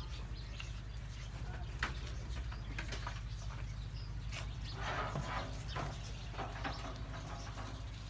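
Goat pen ambience: scattered clicks and light shuffling from goats moving about on sandy ground over a steady low hum, with a short rasping noise about five seconds in.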